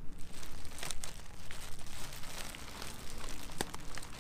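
Plastic trash bag and wadded newspaper crinkling and rustling as they are handled, in a run of irregular crackles.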